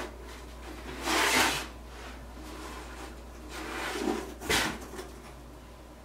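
Handling noises: a click, then a rustling swish about a second in, a softer swish, and a sharp knock a little after four seconds, followed by a few small taps.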